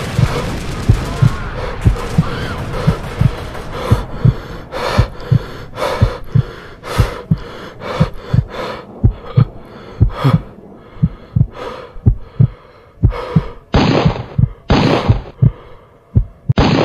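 Heartbeat, a steady run of low lub-dub thumps at about two beats a second, with loud heavy breaths coming in bursts, strongest near the end; the sound cuts off abruptly.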